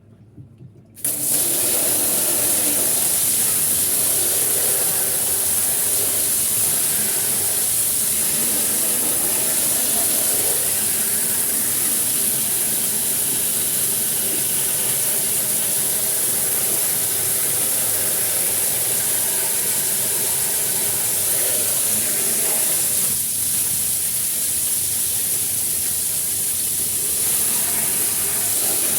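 Water running hard under pressure, a loud steady hiss that starts suddenly about a second in and keeps on.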